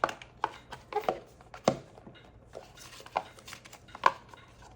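Scattered light clicks, taps and rustles of an iPhone box and its packaging being handled, with two sharper knocks, one about a second and a half in and one near four seconds.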